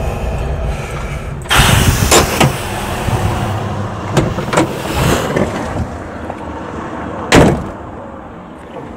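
Simca Chambord's side-valve V8 running at a standstill, heard from inside the cabin, with a louder noisy stretch about a second and a half in. About seven seconds in, a car door shuts with one sharp thud.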